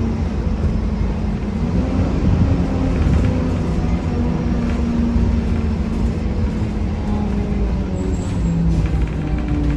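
A 1993 Gillig Phantom transit bus underway, its Cummins ISM diesel and Allison B400R transmission running with a loud, steady low rumble and a grinding drone whose pitch wanders, dipping slightly near the end. The uploader suspects the grinding comes from the transmission.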